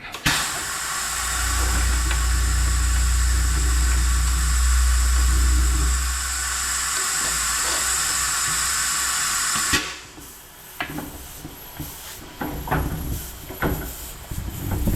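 Loud, steady compressed-air hiss, typical of a valve seat-and-guide machine's air float letting a cylinder head slide freely while a pilot lines it up. A deep hum runs under it for the first several seconds, and the hiss cuts off suddenly near ten seconds in. After that come light metal clicks and knocks.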